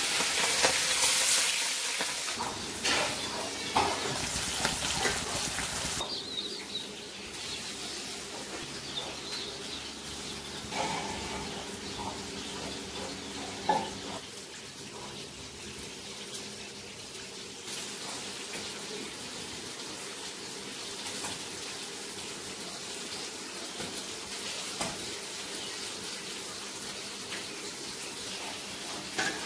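Hot oil sizzling in a wok as turmeric-coated fish pieces fry, cutting off abruptly about six seconds in. After that, only quiet room noise with a few small clicks of a knife peeling red onions.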